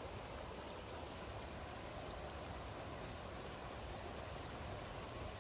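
River water pouring steadily over a low concrete weir.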